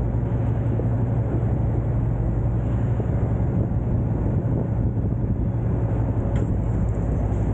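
Large diesel engine running at a steady idle, an even low hum.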